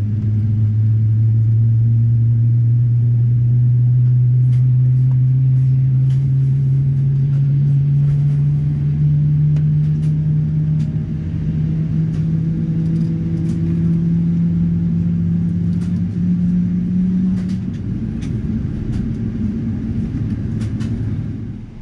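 Boeing 777-300ER on its takeoff roll, heard from the cabin: its GE90 engines at high thrust with a heavy rumble and a loud tone that rises slowly and steadily in pitch as the jet gathers speed. Faint clicks and knocks sound throughout. The rising tone fades after about 17 seconds, and the rumble drops away just before the end.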